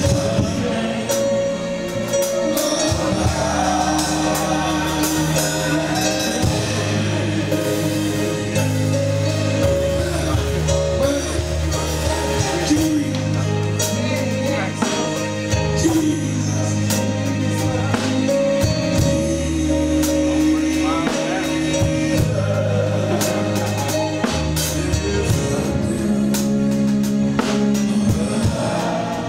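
Gospel worship music: singing over a band with drum kit and low held notes that change every couple of seconds.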